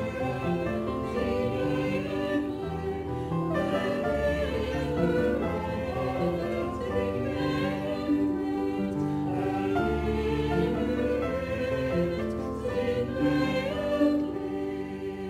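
Choir singing slow sacred music, with long held low instrumental notes underneath.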